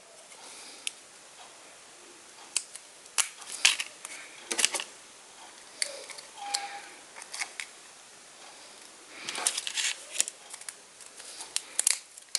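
Irregular small plastic clicks and paper rustling as a paper strip printed with Minion pictures is slid and fitted into a small yellow plastic Kinder Joy toy frame. There is a denser cluster of clicks about nine to ten seconds in.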